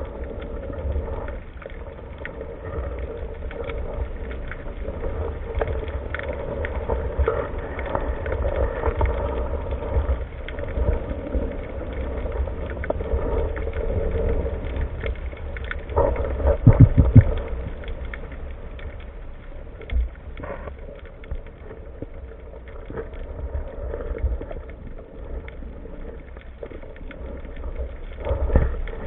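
Muffled underwater ambience as picked up by a diver's camera: a low rumble with a steady hum and scattered faint clicks, and a short cluster of knocks about 17 seconds in.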